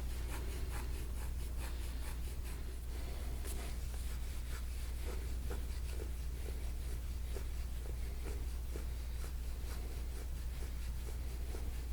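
Gua sha tool scraping over skin in repeated short strokes, a few a second, over a steady low hum.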